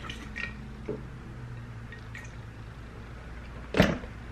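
Close-miked eating sounds from Hot Cheeto-coated loaded fries: soft wet chewing and mouth noises, then one louder smack near the end.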